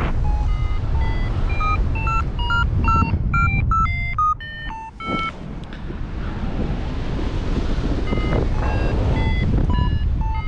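Strong wind buffeting the microphone in flight under a tandem paraglider, with a variometer beeping in short tones that change in pitch, climbing higher over the first few seconds. The wind noise drops briefly about four seconds in, and the beeping thins out before picking up again near the end.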